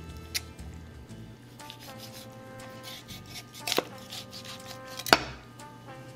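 Kitchen knife cutting through a raw chicken's leg joint and knocking against a plastic cutting board: three sharp knocks, a small one about half a second in, one near four seconds and the loudest about five seconds in.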